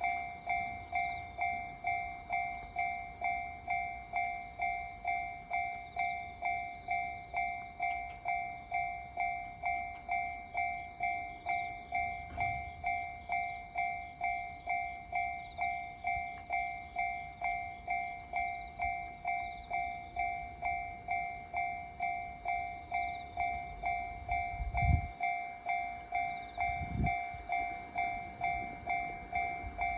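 Japanese level-crossing electronic warning bell ringing over and over in a steady, even rhythm. Twice near the end a low thud rises under it, the first one louder.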